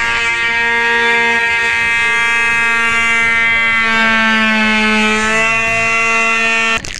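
Electric grinder running, a loud steady whine whose pitch sags and recovers partway through, grinding motorcycle fairings. It cuts off abruptly near the end.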